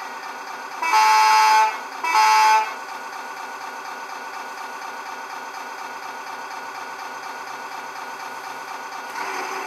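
Servonaut SMX sound module in an RC truck playing its Scania V8 sound set: two truck-horn blasts, the first about a second long and the second shorter, over the steady sampled engine idle. A brief hiss comes near the end.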